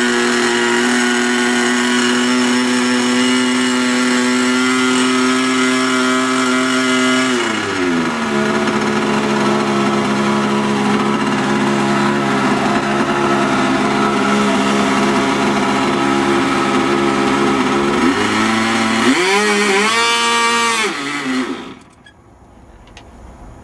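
Small R/C model airplane engine running at high, steady speed. About seven seconds in it is throttled back to a lower steady note, it is briefly revved up and back down near the end, and then it drops away.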